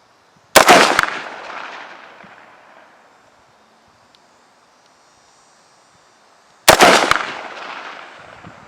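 Two rifle shots from a Helanbak HP15 AR-15 in 5.56 NATO, about six seconds apart, each a sharp crack followed by an echo that dies away over about two seconds.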